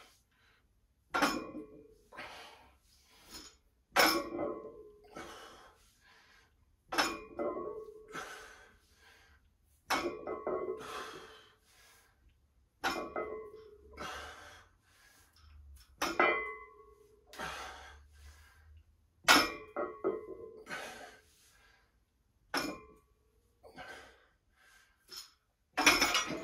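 Loaded barbell set down on the floor between deadlift reps, nine times about every three seconds: each touchdown is a sharp clank of the metal plates, followed by about a second of ringing. Hard, heavy breathing between reps.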